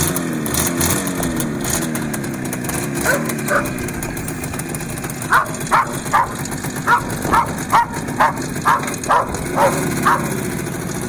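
IZh motorcycle's two-stroke engine running just after starting, its revs rising and falling. A dog barks over it, twice about three seconds in, then a quick string of about ten barks.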